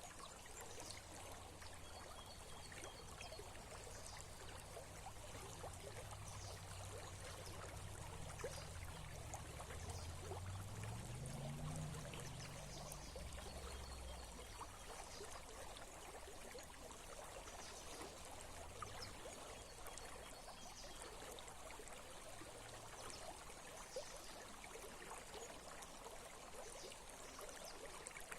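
Small stream or brook flowing and trickling steadily. A low rumble runs underneath in the first half, rising in pitch near the middle and fading out soon after.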